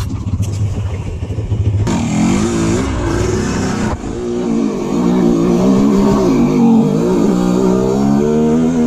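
Dirt bike engine revving up and down as it is ridden over a rough trail. The sound changes abruptly about two seconds in; after that the engine is heard close up, its pitch rising and falling with the throttle.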